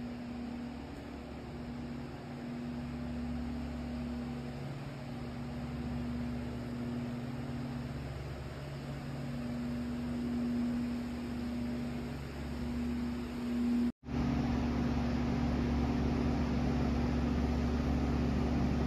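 Steady low hum over a faint hiss. It drops out for a moment about fourteen seconds in, then carries on.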